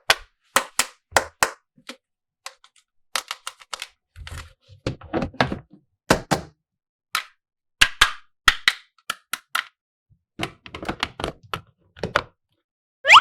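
Plastic toy pieces and packaging being handled: irregular sharp clicks and taps, with a few stretches of rustling. A short rising squeak comes right at the end.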